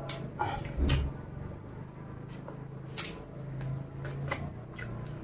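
Close-miked eating sounds: chewing and wet mouth clicks with scattered small crunches and snaps as food is picked up by hand, with a low thump just under a second in.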